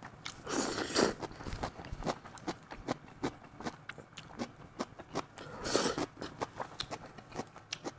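A person chewing a mouthful of cabbage and pork-and-egg omelette close to a lapel microphone: a run of small wet mouth clicks throughout, with two louder swishes, about half a second in and again near six seconds.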